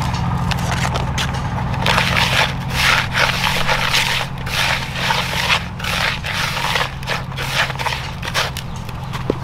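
Gloved hand stirring small seeds into sand in a plastic basin: repeated gritty scraping and rubbing strokes, busiest from about two seconds in. A steady low hum runs underneath.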